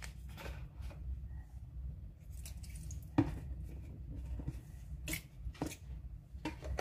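A few light clicks and knocks of kitchen items being handled, spaced out over several seconds, over a low steady hum.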